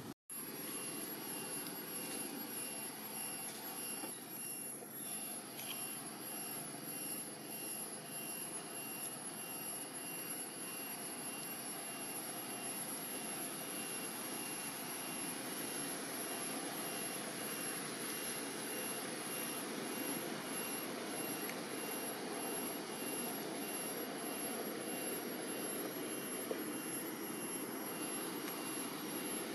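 Steady rushing outdoor background noise with a faint, high, steady whine over it. It cuts out for an instant just after the start.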